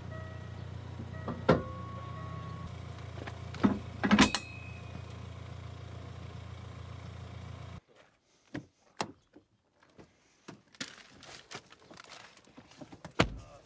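An SUV engine idles with a steady low hum, broken by a few loud metallic clanks from the tow hitch. About eight seconds in the hum cuts off suddenly, leaving scattered clicks and knocks and one louder knock near the end.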